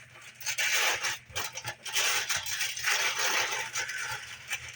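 Dry Cap'n Crunch cereal pouring and rattling into a bowl, a dense patter of small hard pieces in two long pours.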